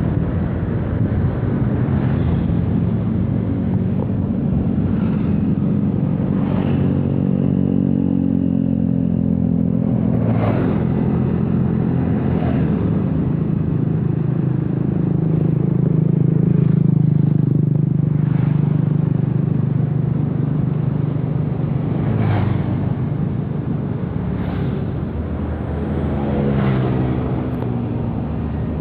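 Diesel-hauled passenger train running: a steady engine drone with occasional short clacks from the wheels on the rails.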